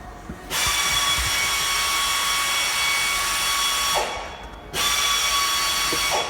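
A small power tool runs at a steady speed with a high whine over a hiss. It runs in two stretches: one of about three and a half seconds, and after a short break a shorter one of about a second and a half.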